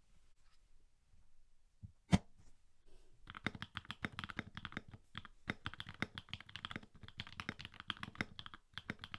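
Custom mechanical keyboard being typed on: a few scattered key clicks and one loud sharp click about two seconds in, then fast continuous typing from about three seconds in, broken by two brief pauses.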